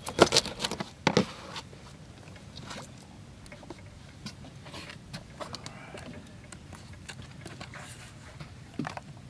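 A knife chopping through fresh bait fish on a plastic cutting board, with several sharp knocks in the first second or so. After that come only faint scattered clicks and rustles of handling.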